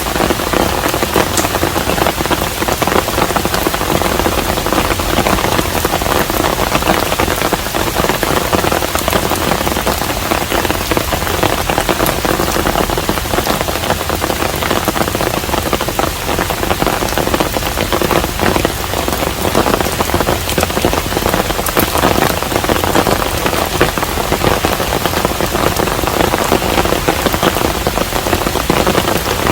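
Steady rain falling on a hanok, a Korean traditional house: a constant hiss of rain with dense, fine drop hits throughout.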